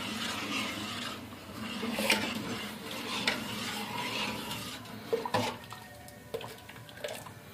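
Metal ladle stirring sweet water thickened with cornflour in an aluminium pot, swishing and scraping against the sides, stirred steadily so that no lumps form. In the second half the stirring eases off and the ladle gives a few short clinks against the pot.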